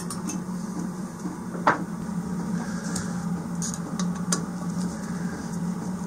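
Hand screwdriver working a small burner bolt loose on a Chinese diesel heater's metal housing: light metallic clicks and scrapes, with one sharp click about a second and a half in and a few fainter ones later. A steady low hum runs underneath.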